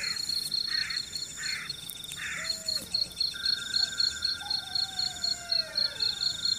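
Night insect chorus: crickets and other insects trilling in steady, evenly pulsed rhythms. A pulsed chirp repeats about every two-thirds of a second and stops about two and a half seconds in, a new steady buzz starts a little after three seconds, and a few falling whistles sound in between.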